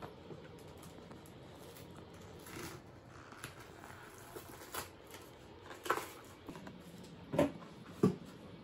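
A few short knocks and light rustles of things being handled on a table, over quiet room tone; the two loudest knocks come close together about seven and eight seconds in.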